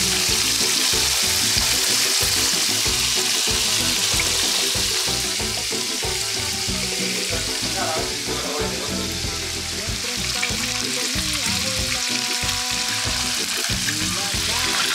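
Corvina steaks deep-frying in a pan of hot oil: a steady, dense sizzle that eases a little through the middle.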